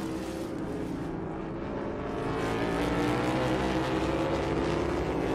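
NASCAR Cup Series stock cars' V8 engines running at racing speed on a road course, heard as a steady engine drone that grows louder and slightly higher about halfway through.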